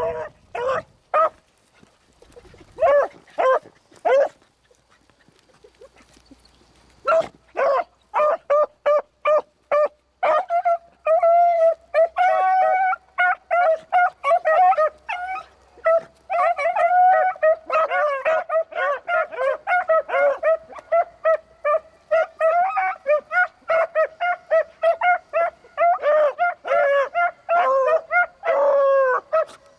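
A pack of beagles giving tongue on a rabbit's scent line, with several dogs baying and barking over one another. A few short calls come first, then a brief lull, then from about seven seconds in the pack opens up into a near-continuous chorus of drawn-out bays.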